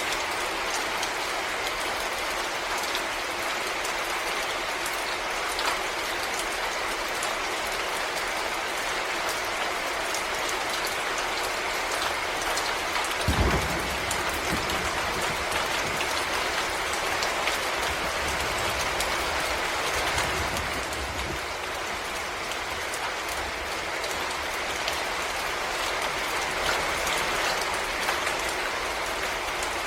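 Steady rain falling in a forest: a dense, even patter made of many small drop hits. A brief low rumble comes about halfway through.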